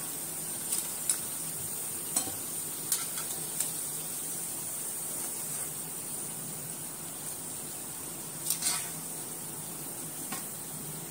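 Hot oil sizzling steadily in a wok as sabudana vadas deep-fry. Now and then a metal slotted spatula clicks and scrapes against the pan, with the loudest pair of knocks near the end.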